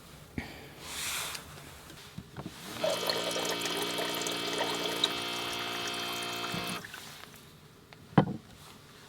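Warm water pouring steadily into a thermos flask for about four seconds, with a ringing tone in the stream. A short sharp knock comes near the end.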